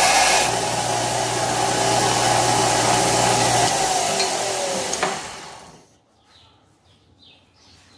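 Belt grinder running with a steel blade blank held against the belt, grinding it down fast. Just under four seconds in the motor stops and the belt winds down with a falling tone, dying away by about six seconds.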